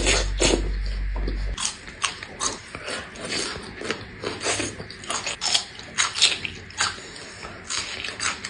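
Close-miked eating of grilled meat skewers: irregular chewing and biting, a few sharp, wet clicks and crunches a second. A low steady hum underneath cuts off about a second and a half in.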